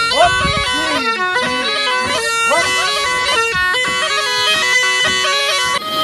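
Tulum, the Black Sea bagpipe, playing a lively folk melody in quick stepped, ornamented notes.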